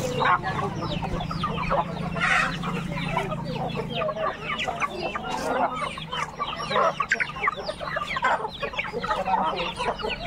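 A flock of domestic chickens clucking and cheeping, many short falling calls overlapping without a break.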